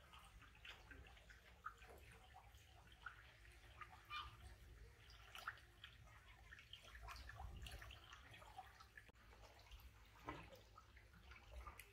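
Faint water at a koi pond: scattered, irregular drips and small trickling splashes over a low steady hum.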